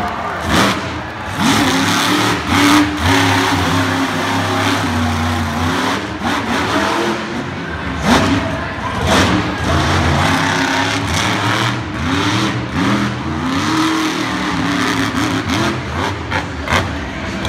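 Monster truck engine revving up and down again and again as it drives over dirt mounds, with several sharp knocks from the truck landing.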